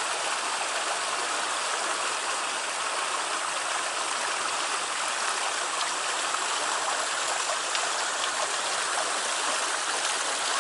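Stream water rushing through a narrow rock channel, a steady whitewater rush.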